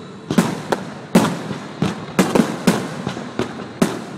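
Aerial fireworks bursting in quick succession: about ten sharp bangs, each trailing off in an echo.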